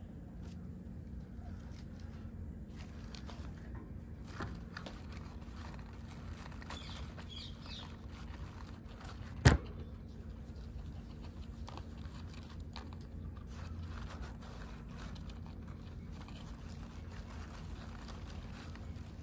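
Faint paper rustling and scratching over a low steady hum, with one sharp knock about halfway through.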